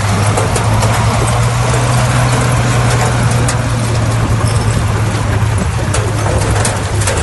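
Bulldozer's diesel engine running steadily with a low hum, with scattered clanks and knocks of the machine working through stone.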